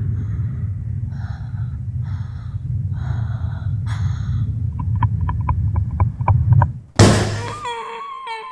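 Horror-film sound design: a low rumbling drone builds under a girl's frightened gasping breaths, about one a second, then a quick run of clicks about five a second. About seven seconds in, a sudden loud hit cuts the drone off, and a wavering high cry or screech follows and fades away.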